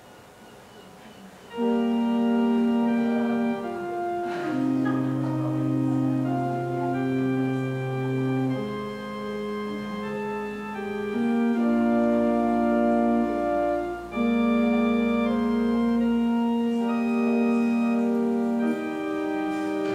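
Organ playing slow, sustained chords with deep held bass notes, starting about a second and a half in.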